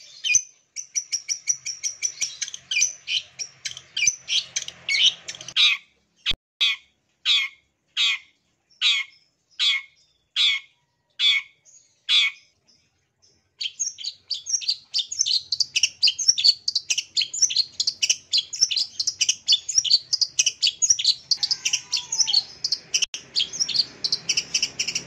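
Long-tailed shrike (cendet) calling: a fast run of chattering notes, then a slower series of harsh scolding notes a little over one a second, a short pause about half-way through, then fast, dense chatter again.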